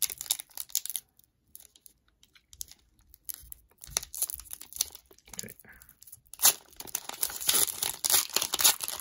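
Foil wrapper of an Upper Deck hockey card pack being picked at and torn open. Brief crinkles give way to a quieter stretch of small ticks, then loud crinkling and tearing of the foil from about six seconds in.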